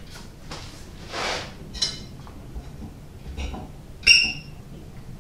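Kitchen utensils and crockery clinking lightly as a serving dish is handled, with a small clink about two seconds in and a louder, ringing clink about four seconds in. A soft rush of breath or movement comes about a second in.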